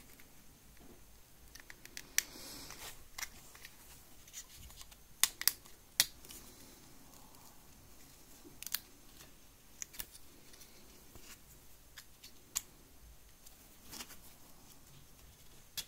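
Small plastic clicks and light scratching from a tight-fitting N gauge model railcar body shell being worked off its chassis by hand, with wedged cocktail sticks. The clicks come at irregular intervals, a few sharper ones about five to six seconds in.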